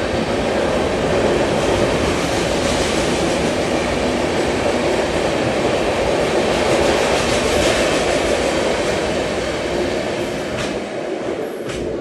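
Express passenger train running past, a steady loud rush of coaches with wheels clattering over rail joints. It thins and fades near the end.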